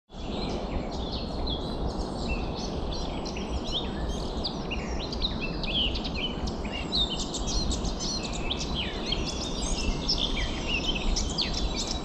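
Many small songbirds chirping and singing at once, dense overlapping short calls, over a steady rushing background noise.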